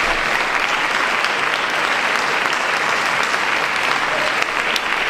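Audience applauding steadily: dense, even clapping from a full house.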